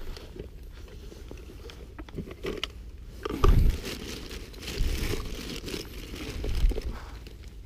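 Crinkling and rustling handling noise with small clicks as lugworm bait is worked onto a hook, with a few low rumbling bumps, the strongest about halfway through.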